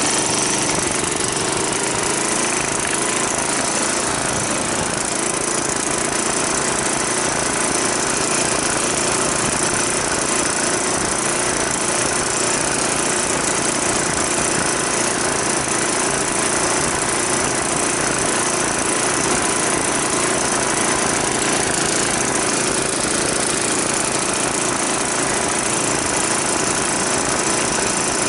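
Minibike's small engine running steadily, with no clear revving up or down.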